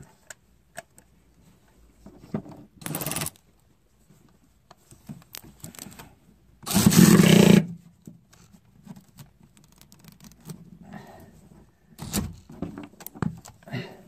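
Cordless electric ratchet running in two short bursts, the longer and louder one about seven seconds in, turning a spark plug out of its well. Metal clinks of the socket and extension come in between.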